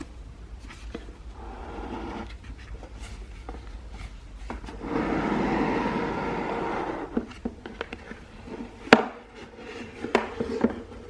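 A rigid cardboard gift box being opened by hand: a rubbing, rustling stretch as the lid is drawn off and the wrapping handled, loudest from about five to seven seconds in, then a sharp tap near nine seconds as something is set down.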